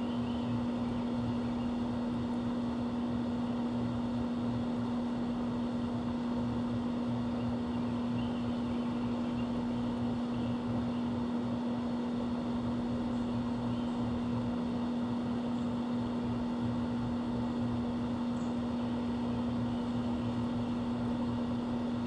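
Steady mechanical hum: a low drone holding one pitch without change, with a faint overlying hiss.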